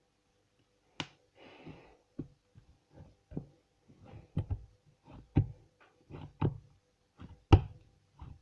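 Fluffy slime being squeezed and poked by hand: irregular squishy pops, clicks and soft thumps, roughly one or two a second, with a sharper pop about a second in and the loudest near the end.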